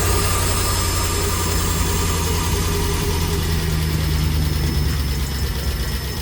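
LS V8 engine idling steadily just after starting, at a raised idle because a hose is still off the throttle body.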